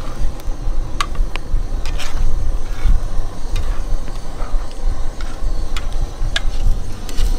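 Metal spatula scraping and tapping on a Skottle disc grill as scrambled eggs are stirred, with scattered sharp clicks. These sit over a loud, steady low rumble.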